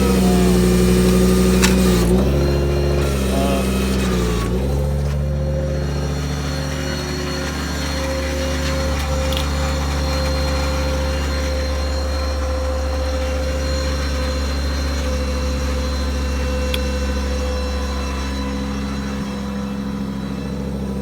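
Ford V10 gas engine of a service truck running with the PTO-driven hydraulics engaged while the hydraulic outriggers are lowered. The engine note sags briefly a few times in the first five seconds under hydraulic load, then runs steadily with a higher steady whine over it.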